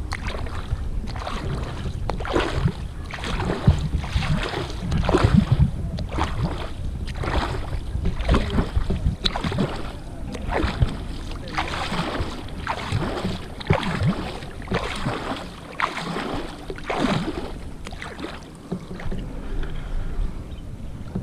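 A double-bladed kayak paddle stroking through calm river water, each blade entry a short swish and splash, alternating sides at a steady rhythm of a little over one stroke a second. A low rumble sits under the first half. The strokes die away near the end as the kayak glides.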